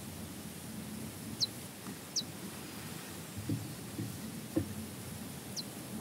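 Three brief, high, downward-sliding chirps from a small bird, over a steady low rumble of open-field ambience. A few soft low thumps come near the middle.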